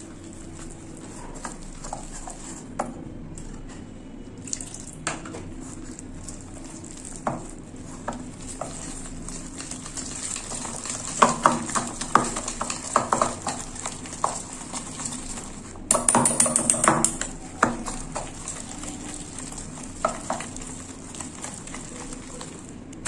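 Wire whisk beating thick gram-flour batter in a stainless steel bowl, its wires clicking and scraping against the metal, with quicker spells of clattering around the middle and again a few seconds later.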